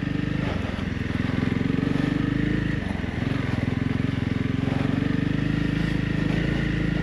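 Honda CRF 300 Rally's single-cylinder four-stroke engine running at low, fairly steady revs, with a brief dip about three seconds in.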